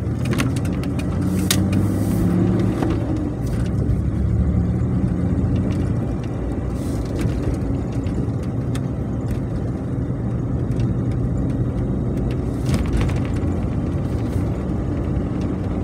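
1993 Ford Explorer's 4.0-litre OHV V6 and road noise heard from inside the cab while driving on city streets, steady, with a few short clicks. The engine is running smoothly with no knocking, pinging or hesitation now that its engine-computer fault is fixed.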